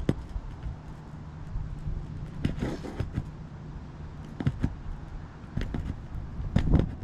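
A roof snake nail puller knocking and scraping against asphalt shingles in several short, irregular strikes while a roofing nail is pried out, over a steady low hum. The nail is set unusually high in the shingle.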